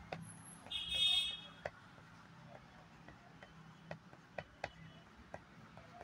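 Pencil tapping and dabbing on paper in several separate short, sharp strokes, over a low steady hum. About a second in, a brief high-pitched horn-like toot is the loudest sound.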